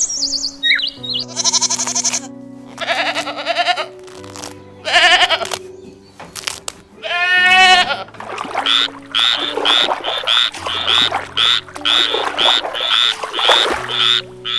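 Bleating animal calls over background music: a few separate calls, one with a strongly wavering pitch about halfway, then a quick run of short repeated calls, about two a second, through the second half.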